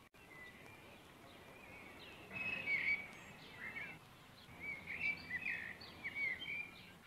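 Songbirds chirping in scattered short calls over a steady low hiss of outdoor background noise, with the busiest calling in the middle and latter part.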